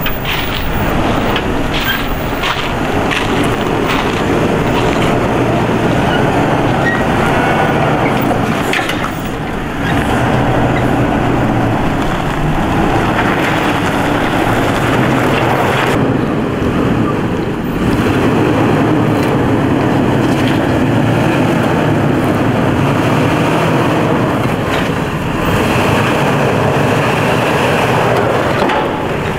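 Off-road vehicle engine running at low speed as the vehicle crawls over rough ground, with a steady low hum, tyre and body noise, and a few short knocks in the first few seconds.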